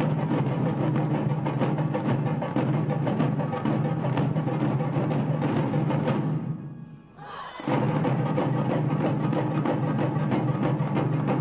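Film score music with steady percussion hits. It falls away about six and a half seconds in and cuts back in abruptly about a second later.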